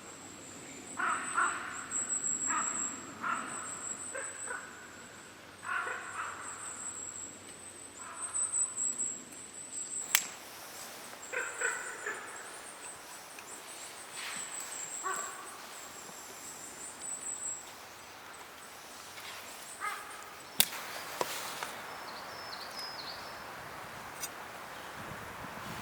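Crows cawing, several short calls in quick runs, over a thin high-pitched steady buzz that stops a little past halfway. Two sharp knocks stand out, one near the middle and one later.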